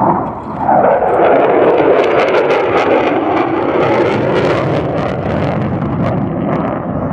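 F-35A fighter's F135 afterburning turbofan passing in afterburner: loud jet noise whose pitch drops about half a second in, then steady afterburner noise with sharp crackling through the middle.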